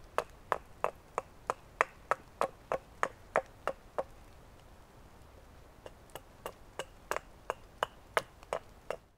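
Hatchet carving wood on a log carving bench: quick, even chopping strikes about three a second, stopping for a couple of seconds in the middle and then starting again.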